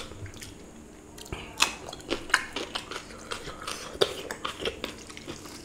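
Close-miked eating sounds: irregular wet clicks and smacks of chewing and handling food by hand. They are quieter for the first second, then come several times a second.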